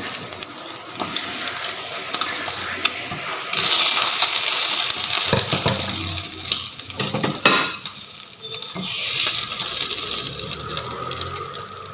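Onion pancake frying in oil in a pan, sizzling, with a spatula scraping and knocking against the pan as the pancake is folded. The sizzle gets louder about three and a half seconds in.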